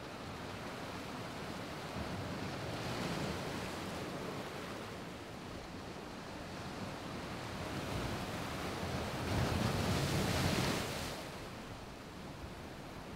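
Surf washing on a beach, with wind. The rushing swells twice, the louder swell about nine to eleven seconds in.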